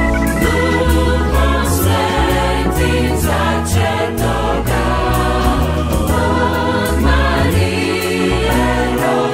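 Church choir singing a traditional Croatian Christmas carol, with instrumental accompaniment: a low bass line and a steady beat.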